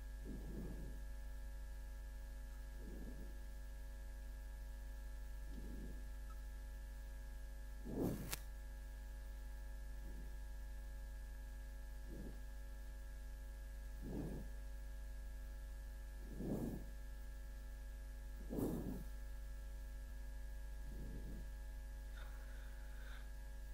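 Steady electrical mains hum with faint short soft sounds about every two seconds, and one sharper click about eight seconds in.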